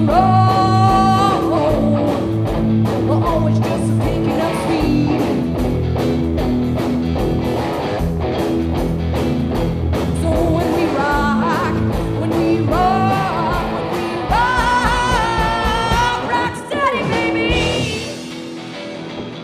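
Live rock band playing electric guitars, bass and drums, with a woman singing long, bending held notes. The band's level drops somewhat near the end.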